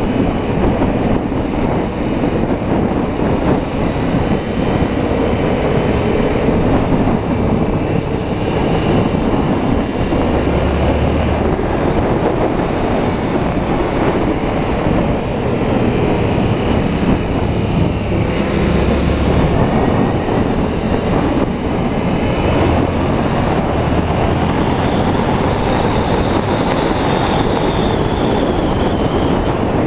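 Yamaha motorcycle engine running at road speed, with heavy wind rush and road rumble over the camera microphone. Near the end the engine's pitch climbs and then falls as the bike speeds up and slows.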